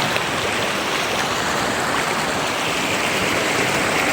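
River water flowing: a steady, even rushing.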